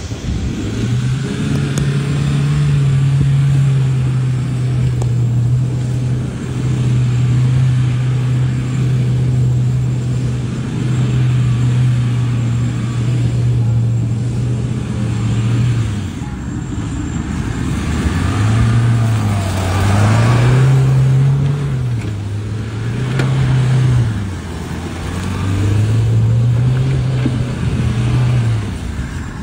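Mahindra Thar's engine running at high revs as the 4x4 is driven hard through a field. Its pitch holds steady for long stretches, then rises and falls repeatedly in the second half as the throttle is worked.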